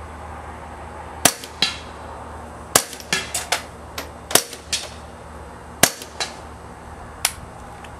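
Suppressed .22 LR Browning Buck Mark pistol (SWR Spectre suppressor) firing Federal bulk-pack rounds: a string of sharp, quiet cracks at uneven intervals. Several are followed about a third of a second later by a fainter crack of the bullet striking the backstop downrange.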